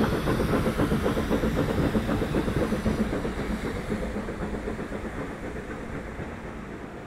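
Steam locomotives working a passenger train, Twizell No.3 at the head and Keighley Gasworks No.2 banking at the rear: a quick, rhythmic chuffing of exhaust beats with a steam hiss, fading away over the second half.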